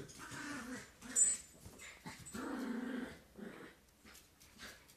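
Puppies play-growling while wrestling: two low rough growls, the second about a second long, with a brief sharp high sound about a second in.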